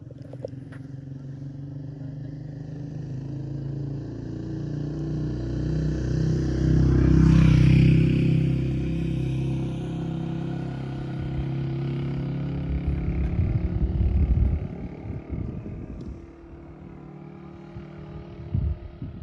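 A motor vehicle's engine passing close by on a road bridge, growing louder to a peak about seven seconds in and then fading, with low rumbling a few seconds later.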